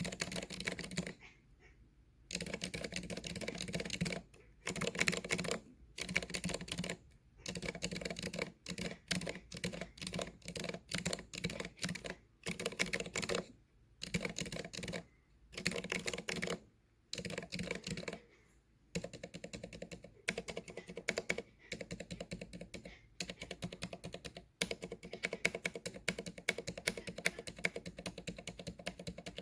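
Typing on a Vortex Core 40% keyboard with 80 g Aliaz silent tactile switches and stock PBT keycaps, no O-ring dampers fitted: a quick clatter of keystrokes in runs of about a second with short pauses between them, turning into almost unbroken typing after about 19 seconds.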